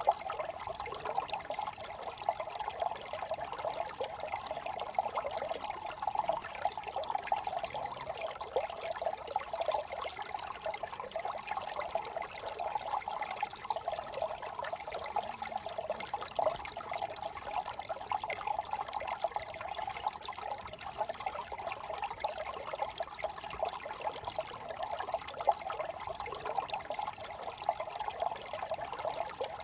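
Small brook trickling and babbling over stones, a steady flickering water sound that sits in the middle range.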